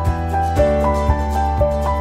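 Background music: a melody of held notes over a steady bass, with a regular beat about twice a second.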